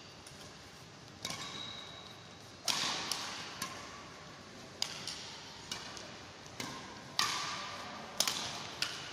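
Badminton rackets striking a shuttlecock, a string of sharp hits spaced about a second apart and coming quicker near the end, each echoing in a large sports hall.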